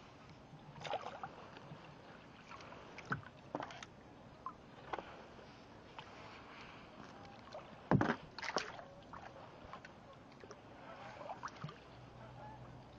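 Small lake waves lapping and splashing on a pebble shoreline in irregular splashes, the loudest about eight seconds in.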